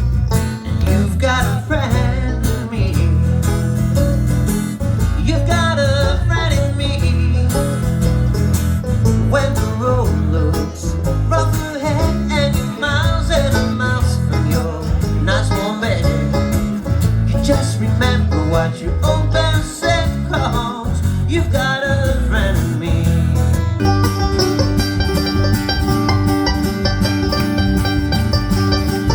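Country-style music with plucked strings over a steady bass. About 24 seconds in it changes to held, sustained chords.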